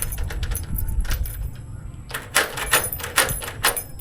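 Doorknob hardware on an aluminum door frame clicking and knocking: a few scattered clicks, then a quick run of sharper knocks from about halfway through to near the end.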